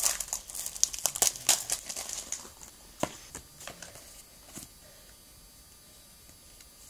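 Foil wrapper of a Pokémon card booster pack being torn open and crinkled: dense crackling for the first two and a half seconds, then a sharp click and a few scattered crinkles that die away over the next two seconds.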